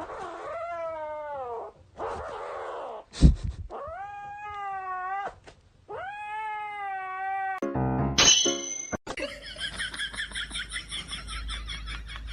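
A cat giving several long, drawn-out meows, the first falling in pitch and the later ones rising and then holding, with a sharp knock about three seconds in. Near the end a different, fast warbling sound takes over.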